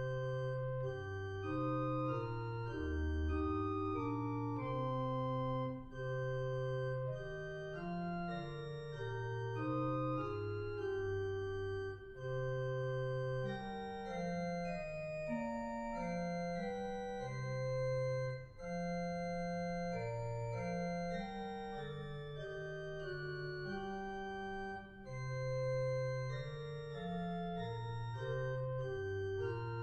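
Organ playing a hymn tune in slow chords, each held about a second, with a bass line moving underneath; no singing.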